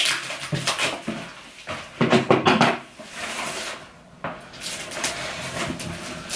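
Parcel packaging being handled and torn open by hand, a run of short scratchy rustles and scrapes, the loudest about two seconds in.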